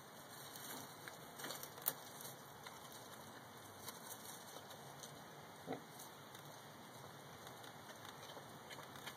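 Pot-bellied pig munching and rooting among leaves: faint scattered crunches and clicks, with one sharper click about two seconds in and a short soft sound about halfway.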